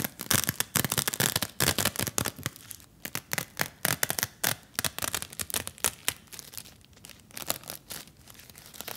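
Crinkling and crackling of a sanitary pad and its thin plastic wrapper being unfolded and handled. It is dense at first and thins out to scattered crackles after about five seconds.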